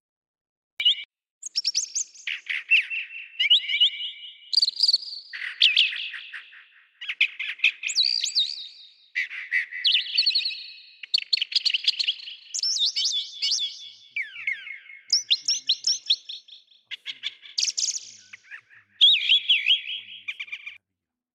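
A songbird singing a long, varied song of rapid trills and whistles, phrase after phrase at changing pitch. It starts about a second in and stops shortly before the end.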